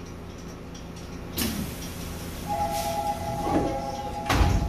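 Subway car's sliding passenger doors closing: a steady warning tone sounds from about halfway in, and the door panels shut with a heavy thud near the end, over the car's steady low hum. A sharp click comes about a second and a half in.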